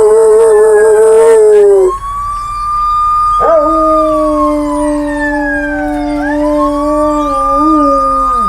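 Dogs howling in long, drawn-out notes. At least two voices overlap: a wavering howl in the first two seconds, then a lower held howl from about three and a half seconds in. Alongside them runs a high wail that slowly falls and rises again, like a siren.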